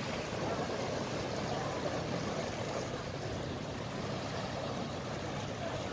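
Small waves breaking over low rocks and washing up the sand, a steady rushing surf.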